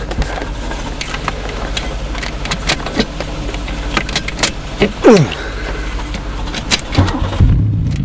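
A GM 3.8-litre V6 car engine being started, amid scattered clicks and a falling whine about five seconds in; the engine catches about seven and a half seconds in and runs steadily.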